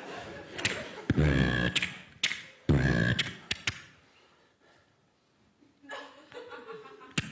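A performer's mouth-made sound effects: sharp clicks and two loud, low vocal blasts about a second and a half apart, then a quiet moment and softer vocal noises with clicks near the end.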